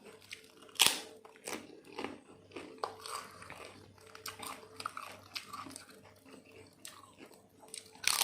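A person chewing crunchy vegetables from a bowl of seblak close to the microphone: irregular crisp crunches and bites, the loudest about a second in.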